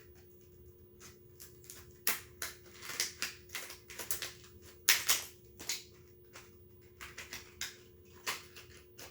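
Plastic packaging crinkling and crackling in irregular bursts as a small pack is handled and opened, loudest about two seconds in and again near the middle. A faint steady hum runs underneath.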